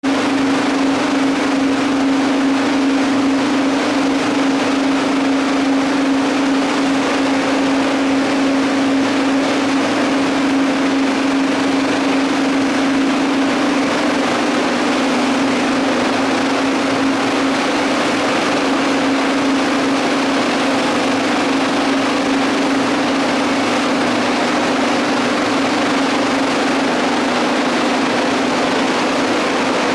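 Machinery of a ball mill grinding plant running: a loud, steady, unbroken hum with a constant low tone over an even wash of mechanical noise.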